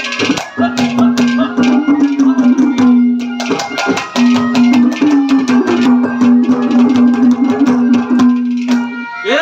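Instrumental music: a fast, dense hand-drum rhythm over a steady held note that breaks off briefly around the middle, with a rising glide at the very end leading into the next sung line.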